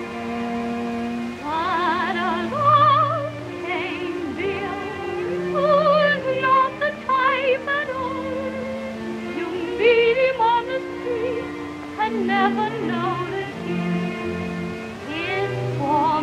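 A woman singing a slow torch song with a wide vibrato over held instrumental accompaniment, in an early sound-film recording.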